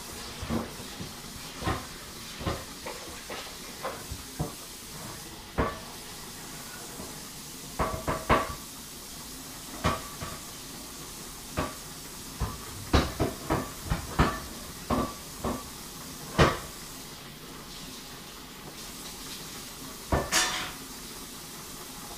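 Irregular knocks and clatter of kitchen cookware and utensils, some with a short metallic ring, in scattered clusters over a steady hiss from steaming pots on the stove.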